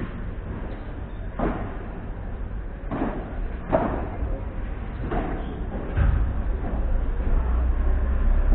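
Padel ball hit back and forth with solid paddles in a rally: about five sharp pops, one to one and a half seconds apart. A low rumble comes in about six seconds in.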